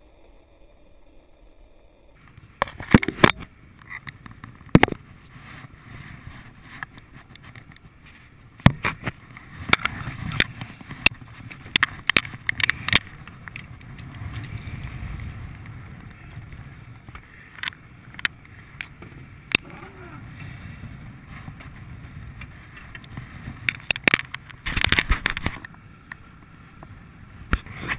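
Wind and water noise on a sportfishing boat, broken by many sharp knocks and thumps as a king salmon is handled aboard. The loudest cluster comes near the end, with the fish on the deck.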